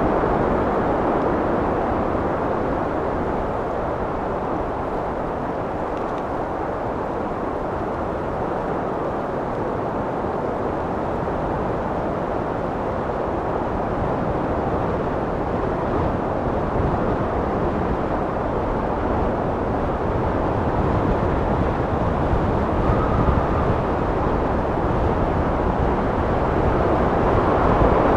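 Steady wind blowing, a deep rushing noise that eases a little a few seconds in and then swells again toward the end.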